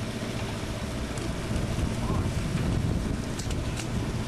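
Sportfishing boat's diesel engine running with a steady low drone, wind buffeting the microphone, and a few short sharp clicks near the end.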